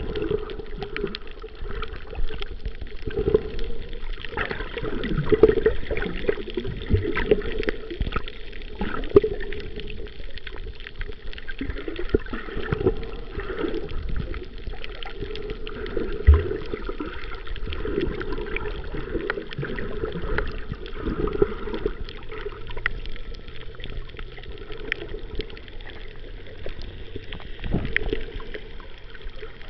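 Water heard underwater: muffled sloshing and gurgling with many small scattered clicks and crackles.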